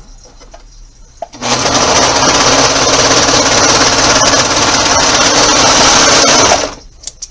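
Brother 1034D serger (overlocker) running at a steady speed as it stitches a fabric edge, starting about a second and a half in, running for about five seconds, then stopping shortly before the end.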